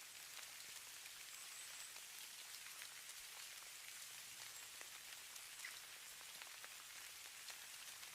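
Light precipitation pattering on a surface: a faint, steady hiss with many tiny ticks scattered through it.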